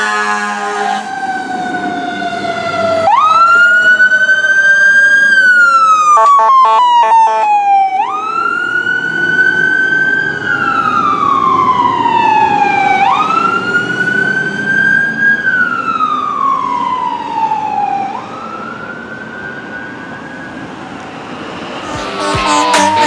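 Fire engine responding with lights and siren: an air horn blast ends about a second in, then the electronic siren wails, rising quickly and sliding slowly down about every five seconds, with a brief burst of rapid pulsing around six seconds in. The siren grows fainter as the truck moves away, and music comes in near the end.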